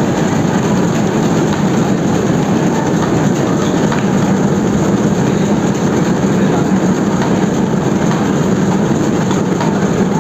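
Newspaper printing press and its folder delivery running at speed, putting out folded papers. A loud, steady mechanical running noise with a constant low hum.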